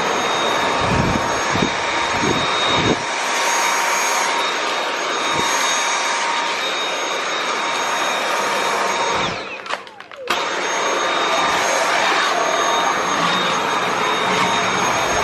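Dyson V8 Absolute cordless stick vacuum running with its soft roller cleaner head pushed across a hard tiled floor: a steady rush of air over a high motor whine, with a few low bumps in the first three seconds. About two-thirds of the way through the sound drops away briefly with a falling whine, then starts again at full level.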